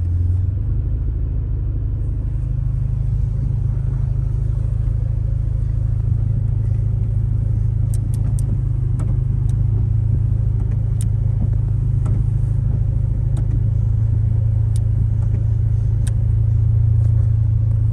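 Steady low rumble of a running car. A few faint sharp clicks sound now and then in the second half.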